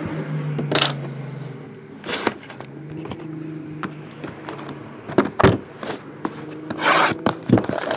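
Handling of a trading-card box and its wrapping: scattered knocks and clicks, and a longer crinkly rustle about seven seconds in, over a low steady hum.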